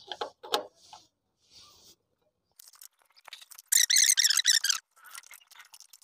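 Faint clicks of hand tools at a motorcycle engine's clutch cover. Near the middle comes about a second of loud, rapid, high-pitched chirping.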